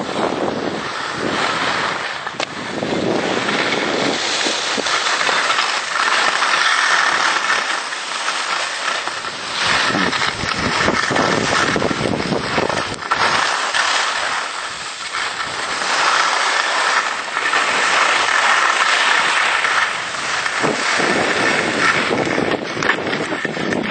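Continuous scraping hiss of a rider's edges sliding and carving over packed snow during a fast descent, with wind buffeting the microphone in gusts that come and go.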